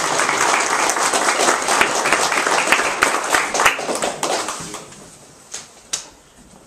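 Audience applauding. The dense clapping dies away about four and a half seconds in, and a couple of last single claps follow near the end.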